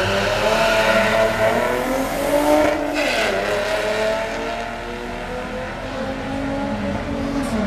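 Two drag racing cars accelerating hard off the line and down the strip, engines revving up through gear changes. They grow fainter as they pull away, and another engine runs steadily near the end.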